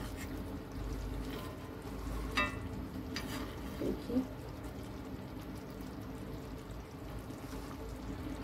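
A steel spoon stirring thick tomato gravy in a black iron kadhai, with a couple of short metallic clicks about two and a half and three seconds in and a brief scrape just after, over a steady hiss and hum.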